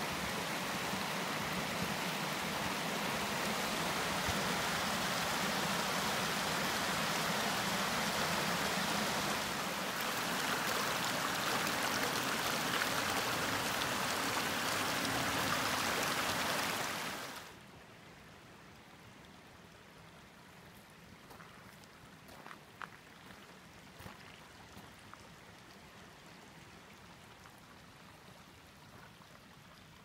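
Small mountain stream rushing over rocks, a steady rush of water. About halfway through it cuts off abruptly, leaving a much quieter background with a few faint clicks.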